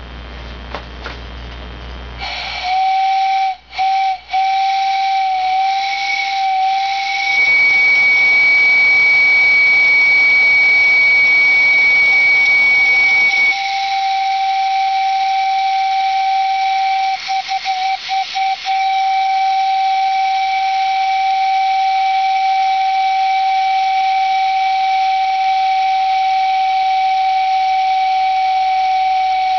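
Homemade brass mini steam whistle blowing a steady whistle tone over a steam hiss, starting a couple of seconds in after a moment of hiss alone. For several seconds in the first half it jumps to a higher, louder shriek with more hiss. It then settles back to the lower tone, stuttering briefly before running on steadily.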